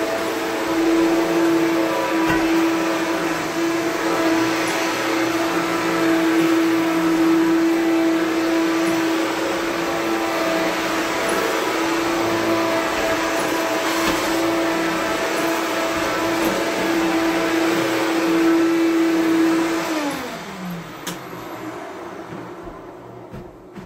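Power Drive self-propelled upright vacuum cleaner running with a steady motor hum. About twenty seconds in it is switched off, and its pitch falls as the motor winds down.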